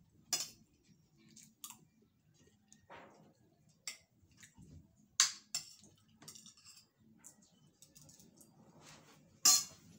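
Metal spoon and fork clinking and scraping against ceramic plates while eating, a string of short sharp clicks with the loudest about five seconds in and near the end.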